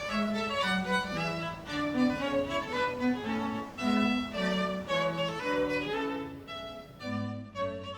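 Background music led by violin with bowed strings, playing a melody of short changing notes.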